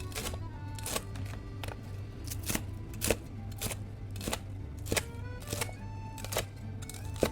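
Sharp crunchy chops of a knife cutting through crispy deep-fried fish-sauce pork, about one every half second to a second, over background music.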